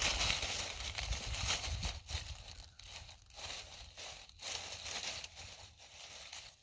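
Nine-banded armadillo rooting and digging through dry fallen leaves: an irregular crinkling and crackling of leaf litter, fading somewhat near the end.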